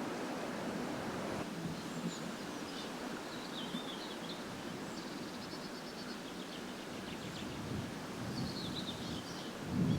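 Reed warbler singing: scratchy, chattering phrases with runs of quick repeated notes, in several bouts over a steady background hiss.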